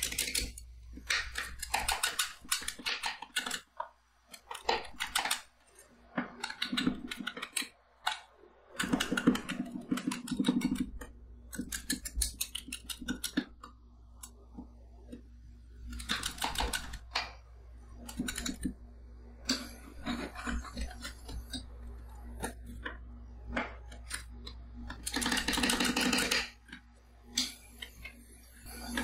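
Two metal spatulas chopping and scraping a golden-kiwi ice cream base on the steel plate of a rolled-ice-cream cold pan, in irregular runs of rapid metal taps and scrapes as the base freezes. A steady low hum runs underneath.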